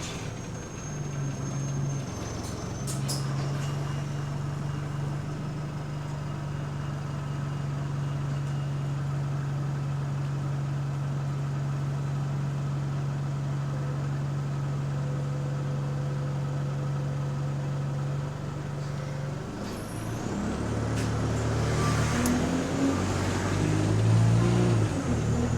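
Bus engine heard from inside the passenger cabin: a steady low idle hum while the bus stands, then about twenty seconds in the engine note shifts and rises, louder and rougher, as the bus pulls away.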